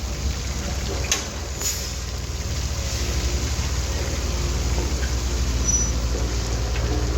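Vibratory road roller running on the stony road base, its diesel engine and drum giving a steady, rapid low pulsing. A single sharp knock about a second in.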